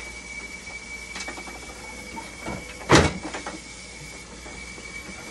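Handling noises and small clicks from parts inside the open back of a hemodialysis machine, with one loud clunk about three seconds in, over a steady high-pitched whine.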